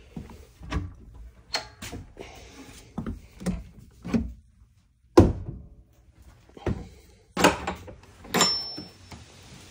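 A series of separate knocks and thuds, about a dozen at irregular intervals, each with a short ring, the loudest about five seconds in; a brief high squeak comes near the end.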